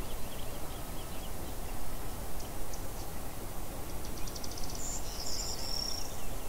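Outdoor rural ambience: a steady low background hiss with scattered faint high bird chirps, and near the end a quick run of ticks followed by a short high trill.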